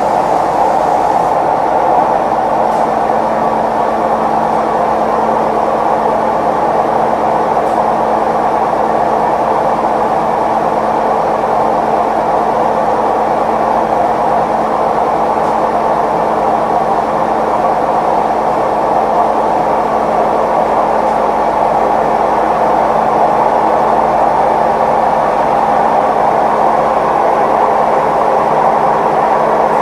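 Maytag Neptune MAH19 front-loading washer spinning at maximum extract speed: a loud, steady roar with a constant hum underneath, the sign of bad drum bearings in a machine that stands unlevel.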